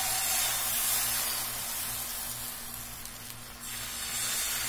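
Wheat-flour dosa batter sizzling with a steady hiss on a hot dosa pan as it is poured and spread with a ladle, a little louder about three seconds in.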